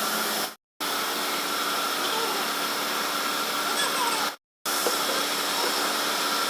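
Steady rushing, hissing noise of a workshop air tool or blower running, broken twice by abrupt cuts to silence, with faint voices in the background.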